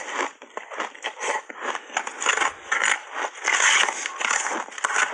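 Crushed ice coated in matcha milk powder being bitten and chewed up close, a dense run of irregular crunches and crackles, with a metal spoon scraping the plastic tub as more is scooped.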